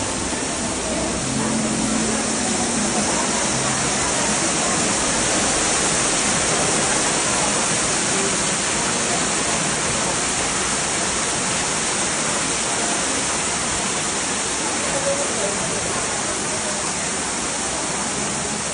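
Water pouring and splashing at a decorative wooden water wheel: a steady rushing hiss, a little louder partway through.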